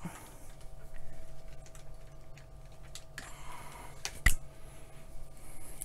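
Test leads being handled and plugged into the meter and bench gear: light clicks and cable rustling, with one sharp click a little after four seconds in, over a faint steady hum.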